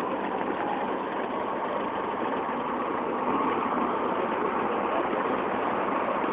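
Classic sports-car engines running at low speed as a red Triumph TR4 and then a white MGB roll slowly past. The sound is steady and even, with no revving.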